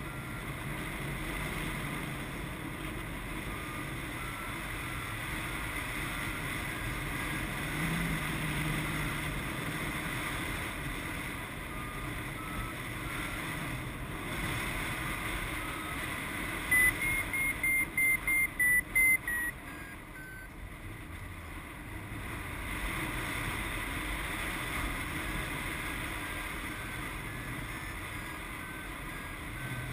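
Paraglider variometer beeping over a steady rush of wind on the microphone: spaced beeps that step up and down in pitch, then a quick run of about seven loud, higher beeps past the middle, the vario's signal of climbing in lift.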